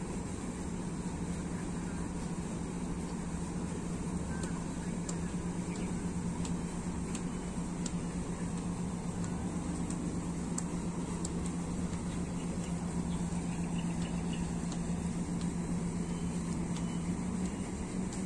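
A steady low machine hum over a constant rush of background noise, with faint high ticks now and then.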